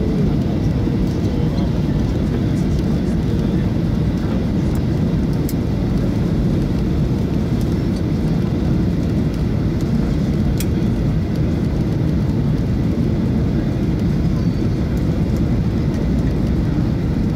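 Steady low rumble of a Boeing 737's engines and airflow heard from inside the passenger cabin on final approach.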